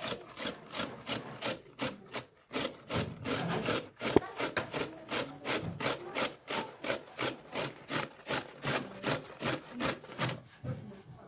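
Beetroot being grated on a stainless steel box grater standing in a metal tray: rapid, regular rasping strokes, about two to three a second, with one sharp knock about four seconds in. The strokes grow fainter near the end.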